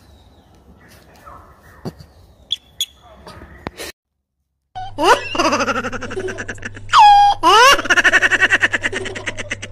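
Loud, high-pitched laughter starts about five seconds in, in rapid ha-ha pulses with swooping rising and falling pitch. Before it there are only a few faint clicks.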